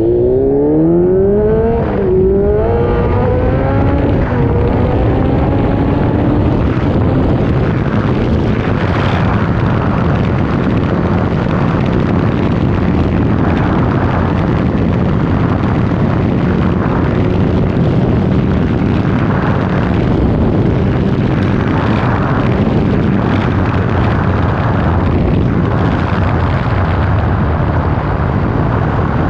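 Kawasaki Z900's inline-four engine accelerating hard from a standstill, its pitch rising, dipping at a gear change about two seconds in, then rising again. After that comes a steady rush of wind and tyre noise on the wet road at speed, with the engine underneath.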